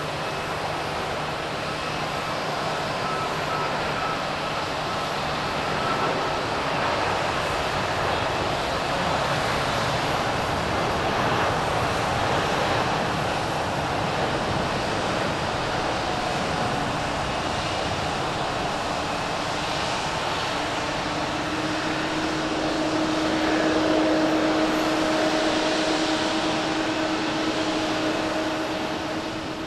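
British Airways Boeing 787-9's Rolls-Royce Trent 1000 turbofans at takeoff thrust: steady jet engine noise through the takeoff roll and liftoff. It grows louder about two-thirds of the way through, with a steady low hum coming in over it.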